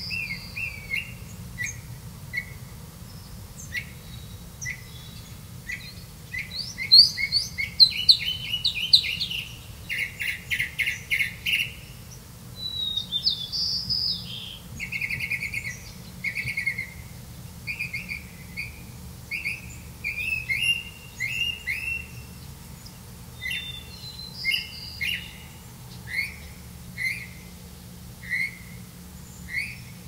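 Songbird nestlings begging as the parent feeds them: a run of short, high chirps repeating every half second or so, with a louder burst of rapid chattering about a quarter to a third of the way in.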